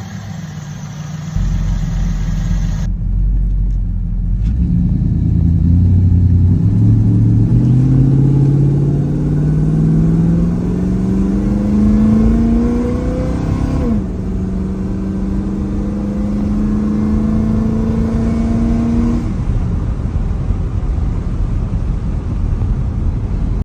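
Small-block Ford V8 running with new roller rockers and an MSD distributor, its timing just set: the revs climb steadily for several seconds, dip briefly, hold steady, then drop back near the end.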